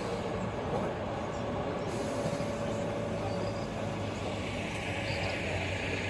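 Steady low mechanical hum with a hiss over it and a faint steady higher tone, unchanging throughout.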